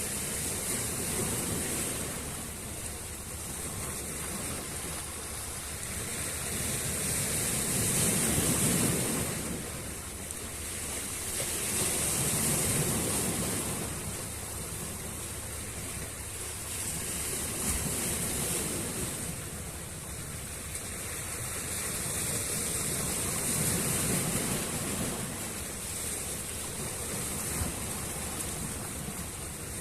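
Sea waves washing onto the shore, the surf swelling and falling away in slow surges every four to five seconds.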